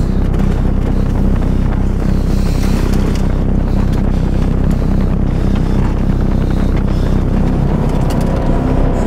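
Steady low rumble of a car on the move, heard from inside the cabin: engine and road noise.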